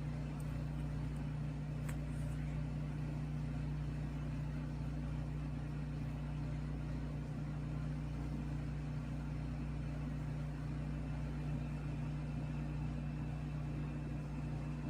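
Steady low mechanical hum with a faint regular pulse underneath, like a small motor running; no loud sudden sounds stand out.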